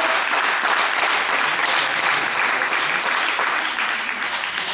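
Spectators applauding in a sports hall, a dense patter of clapping that gradually dies down near the end.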